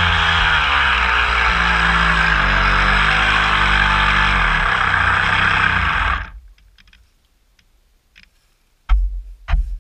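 Homemade plywood RC boat's motor running with water rushing along the hull, its pitch dropping as it slows, then cutting off about six seconds in. A few sharp knocks near the end.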